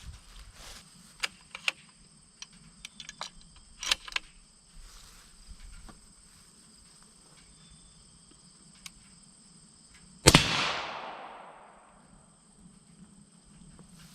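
A single shot from a suppressed .308 SIG Cross rifle fitted with a Griffin Armament GP7 suppressor, sudden and loud about ten seconds in, its report trailing off over a second or so. Small clicks and taps come before it, and a steady insect buzz runs throughout.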